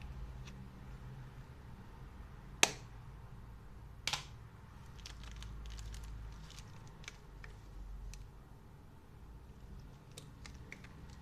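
A sharp click about two and a half seconds in and a second one a second and a half later, then a scatter of light taps and ticks, as of small plastic camera accessories being handled and snapped together, over a low steady hum.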